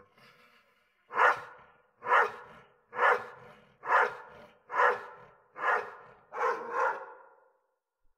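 An animal calling: eight short, loud calls about a second apart, the last two coming close together.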